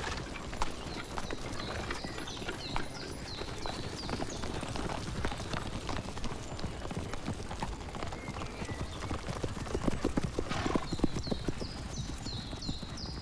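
Horse's hooves clip-clopping at a walk, an uneven run of small knocks, with high falling chirps repeating over it at the start and again near the end.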